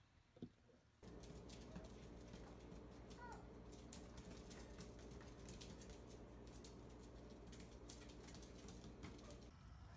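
Faint, rapid clicking of a small dog's claws on a linoleum floor as it spins in circles, starting about a second in, over a low steady hum.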